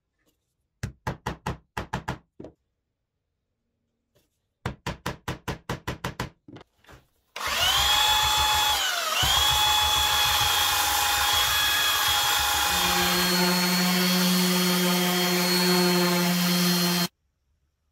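Two quick runs of sharp taps, then a belt sander running loud and steady on a wood-and-epoxy-resin disc, its whine dipping in pitch briefly as it is pressed into the work. From about thirteen seconds a random orbit sander runs with a lower, steady hum, and it cuts off suddenly near the end.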